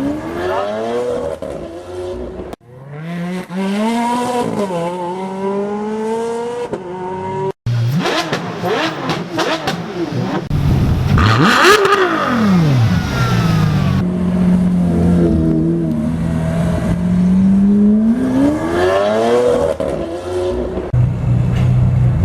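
High-performance supercar engines in a quick series of short clips, revving up and down, with the engine pitch repeatedly climbing and falling; about twelve seconds in one revs sharply up and straight back down.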